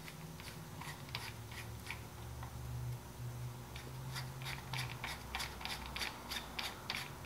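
Small plastic clicks as the compressor regulator's black plastic knob assembly is turned and fitted together by hand; the clicks are sparse at first, then come about three or four a second from about halfway through.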